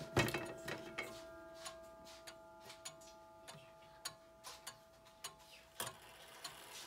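Ticking and clicking of a circa-1910 German wall clock movement as its minute hand is pushed up to the hour, with a sharp click just after the start. A faint ring of the chime gongs hangs on underneath and stops at a click near the end.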